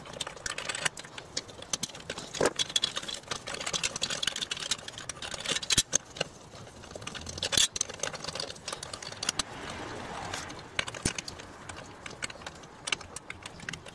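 Irregular metallic clicks and clinks of a socket tool working loose the cylinder head bolts of a Briggs & Stratton 2 hp engine, with the bolts knocking against the metal as they come out.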